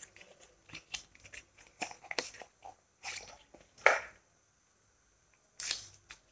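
Foil wrapper of a stock cube crinkling as it is unwrapped by hand: faint irregular crackles, with a few louder crinkles about four seconds in and near the end.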